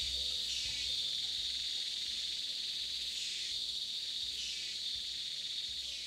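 Tropical rainforest insect chorus: a steady high-pitched drone that swells louder for a moment about three times.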